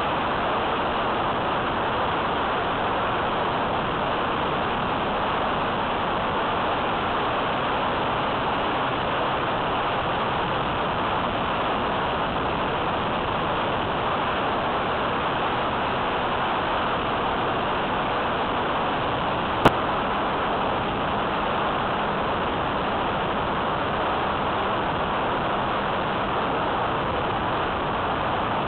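Steady rush of airflow and propeller noise from an E-flite Apprentice S15e electric RC plane in flight, picked up by a mini camera on the plane so that wind on the microphone dominates. One sharp click about two-thirds of the way through.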